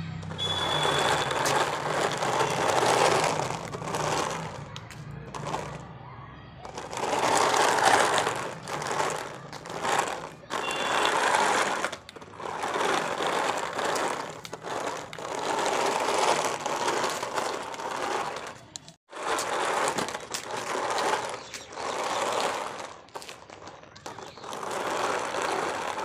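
Small DC motors of a homemade cardboard remote-control car whirring in repeated spurts of a few seconds, its small wheels rolling on rough concrete.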